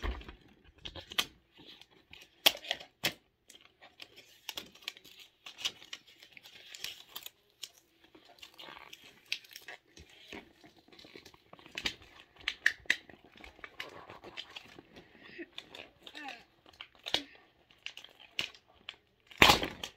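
Packaging being crinkled and torn open by hand, an irregular run of crackles, rustles and sharp snaps as a stubborn toy surprise package is worked open.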